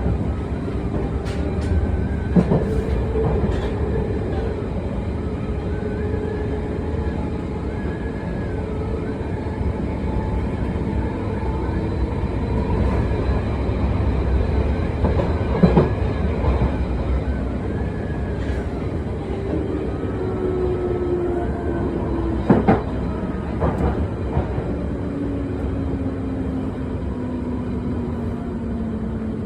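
1973 Tube Stock train running, heard from inside the carriage: electric traction motors whining over a steady rumble of the wheels, with a few sharp knocks from the track. In the last ten seconds the motor whine falls steadily in pitch as the train slows.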